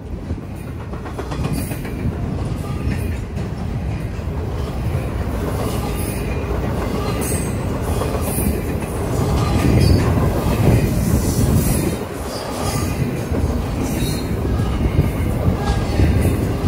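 Double-stack intermodal freight train's loaded well cars rolling past at close range: a steady rumble of steel wheels on rail with repeated high-pitched clicks, growing somewhat louder about ten seconds in.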